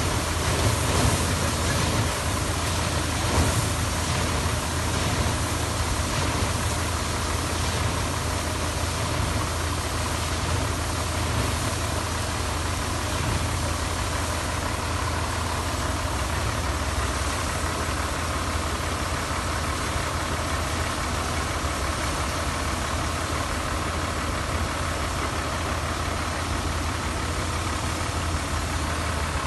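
Truck-mounted water-well drilling rig running steadily, with a constant low engine hum under a hiss and splash of water blown up out of the newly struck borehole and pouring from a discharge pipe into the mud pit.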